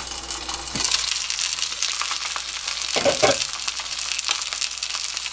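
Glazed mackerel fillet sizzling and crackling in a nonstick frying pan, the sizzle turning louder and brighter about a second in as the glass lid comes off. A short low sound cuts in about three seconds in.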